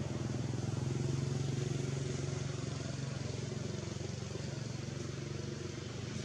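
A small engine running steadily at a constant pitch, a little louder about a second in and then easing slightly.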